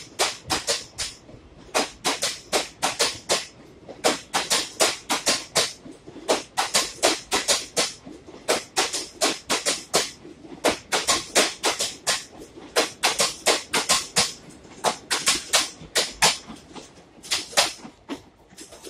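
Passenger coaches of an express train passing at speed, their wheels clattering over the rail joints in quick groups of sharp clicks. The clatter stops near the end as the last coach goes by.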